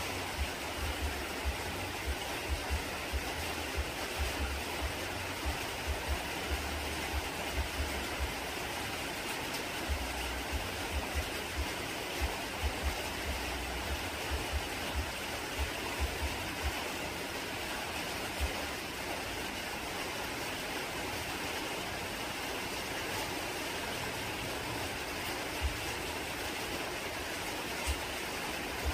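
A steady hissing rush, with irregular low thumps that come thickly in the first half and thin out later.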